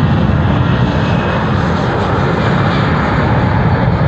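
Boeing C-17 Globemaster III's four turbofan engines at takeoff thrust as the transport lifts off and climbs steeply. Loud, steady jet engine noise with no let-up.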